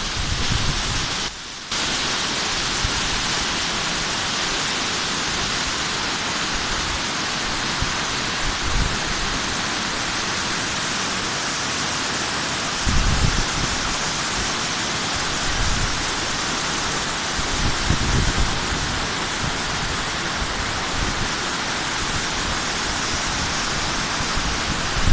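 Manthoka waterfall's water rushing and crashing as a steady, loud roar of white noise, with a few low rumbles about halfway through.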